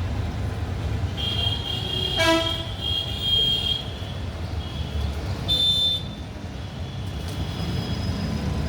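Morning outdoor ambience: a steady low traffic rumble under high, thin bird calls, with a short, loud toot about two seconds in and another short pitched call near six seconds.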